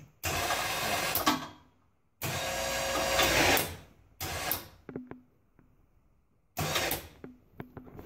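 Polaris Ranger's electric winch motor running in four short bursts, starting and stopping abruptly as the new rocker switch is pressed and released, with a few light clicks in between.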